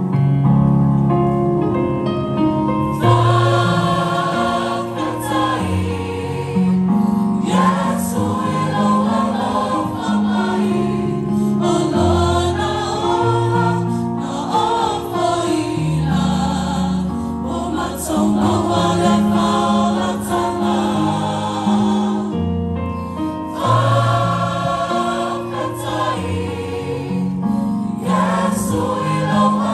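A choir singing a Christmas carol in several parts, with sustained notes held in harmony.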